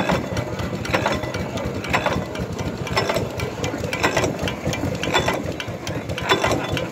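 6 hp Ontario stationary gas engine running slowly: a steady mechanical clatter of its moving parts, with a sharp clack about once a second.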